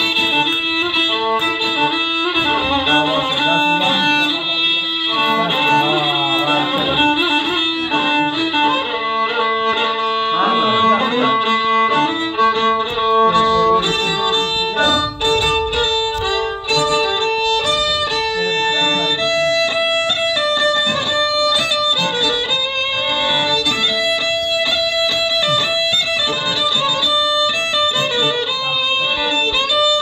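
Solo violin playing a melody with long held notes and sliding ornaments between them.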